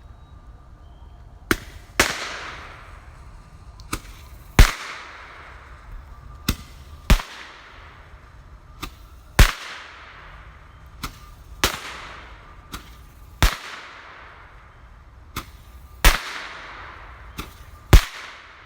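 A consumer multi-shot firework going off eight times at steady intervals of about two and a half seconds: each shot is a sharp pop followed about half a second later by a louder bang, the launch and then the burst overhead, with a hiss that fades after each bang.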